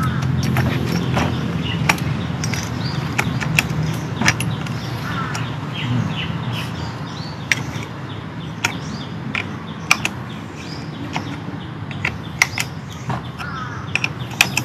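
Irregular clicks and taps of nylon trimmer line against a plastic brush-cutter line head as the line is worked and locked into place. Birds chirp a few times, and a low hum fades out in the first half.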